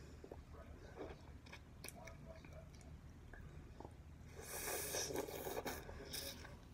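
Close-up mouth sounds of someone biting and chewing wax candy, with small wet clicks and smacks. From about four and a half seconds in, a louder, denser stretch of crunchy chewing.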